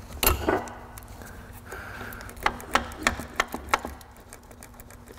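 Sharp clicks and light metallic knocks as a manual transmission's clutch release fork and bell housing are handled during greasing. One click comes near the start, then a quick run of about seven more around the middle.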